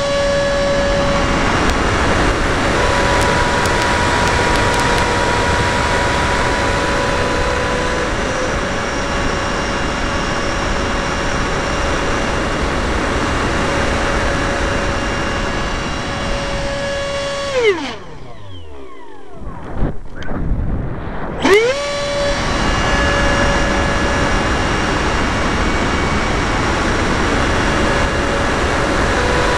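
R/C model F-16's motor running at a steady high whine, heard from a camera mounted on the plane, with wind rush over it. About two thirds of the way through, the throttle is cut: the whine drops steeply in pitch and mostly wind is left for a few seconds. Then it winds back up to the same steady whine.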